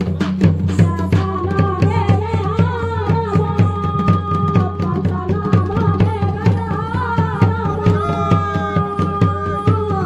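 Garhwali folk music for a Pandav Nritya dance: a fast, steady drumbeat of about four strokes a second under a melody of long held notes.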